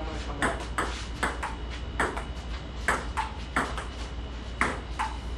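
Table tennis rally: a ping-pong ball clicking off the paddles and the table in quick back-and-forth, about two hits a second, some with a short ring.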